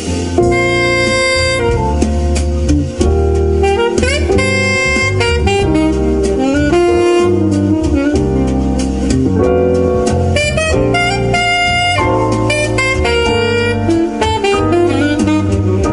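Instrumental jazz with a lead saxophone over drums and bass, played back loud on a car audio system.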